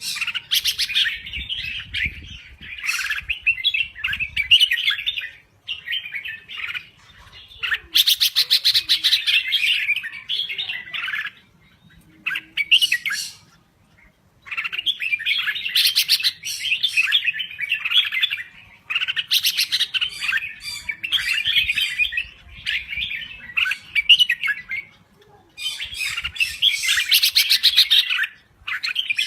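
Red-whiskered bulbul singing busily in runs of rapid chirping, bubbling phrases. The runs break off for short pauses, the longest about two-fifths of the way in, and some passages turn into fast ticking chatter.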